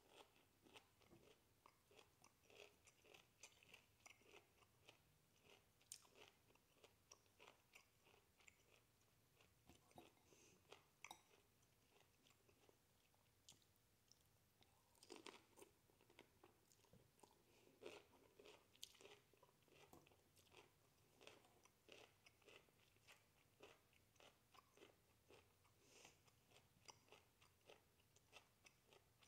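A person chewing broccoli florets close to the microphone: faint, irregular crunching and mouth clicks, one bite after another.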